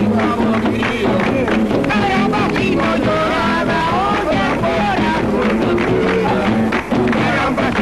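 Lively Latin American music with a busy rhythm of sharp strikes over a steady bass.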